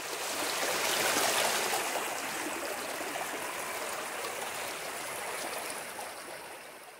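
Muddy floodwater rushing out of a corrugated culvert and splashing around a large log lodged in the channel.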